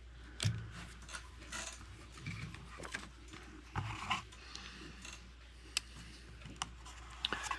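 Light handling noises of a small folding knife and measuring gear: a few soft knocks and rubs, then two sharp little clicks near the end.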